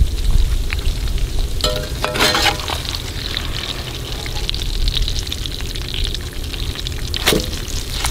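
Cornmeal-battered rattlesnake sizzling steadily as it fries in oil in a cast iron skillet. A metal fork turning the snake gives a few sharp clinks about two seconds in and again near the end.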